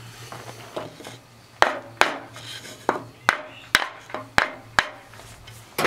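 A series of about eight sharp knocks, irregularly spaced, starting about a second and a half in: sawn stone frame sections being tapped to seat them on their steel spigots during a dry fit.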